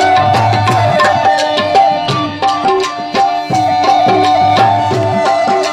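Tabla playing a fast, steady rhythm, with deep bass-drum notes, under a melody held by harmonium and wind instrument, in an instrumental passage of Saraiki folk music.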